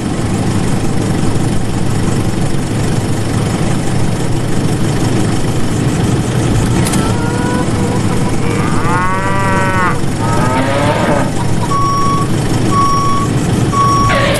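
A vehicle engine running steadily, with a cow mooing twice around the middle and a reversing alarm beeping three times near the end.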